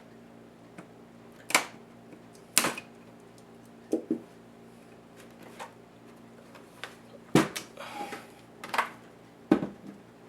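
Sharp, irregular clicks and knocks of laptop casing parts and small tools being handled during disassembly, about six in all, with a brief scrape about eight seconds in.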